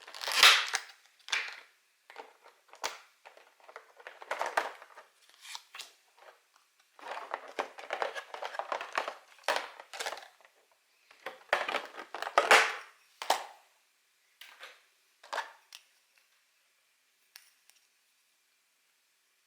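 Packaging of a Pokémon trading-card box being handled: plastic and card crinkling and rustling in a string of short bursts, with a longer run of crinkling in the middle. It stops about three seconds before the end, leaving only a faint steady hum.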